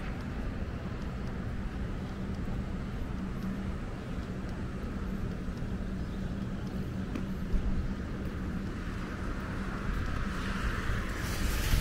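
Rain-soaked city street: a steady low traffic hum, and near the end a car going by with the hiss of its tyres on wet pavement.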